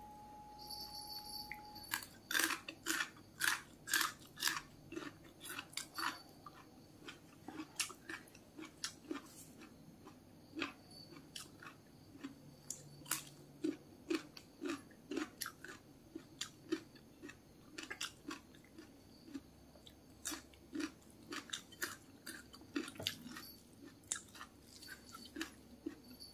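Person chewing crunchy food close to the microphone, with crisp crunches about twice a second, loudest in the first few seconds and then more irregular. A faint steady tone sounds for the first couple of seconds.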